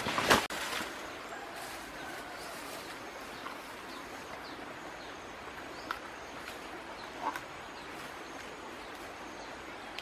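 Outdoor ambience: a steady hiss with a few faint, scattered bird chirps, and a brief loud rustle just after the start.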